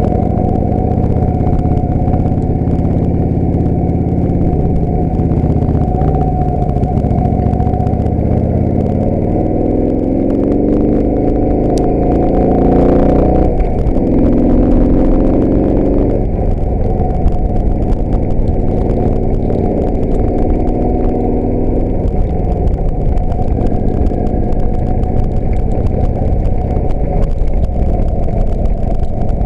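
A 1999 Harley-Davidson Heritage Springer's V-twin engine running on the road, climbing in pitch three times as it accelerates.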